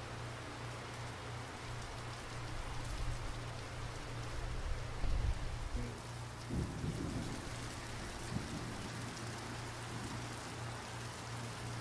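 Steady rain falling, with a low rumble of thunder swelling about five seconds in, over a steady low hum.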